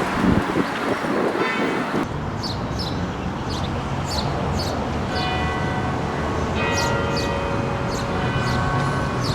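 Bells ringing in clusters of sustained tones at several pitches over low traffic rumble, with a small bird chirping repeatedly in short falling notes. The bells and chirps start about two seconds in, after a stretch of rough street noise.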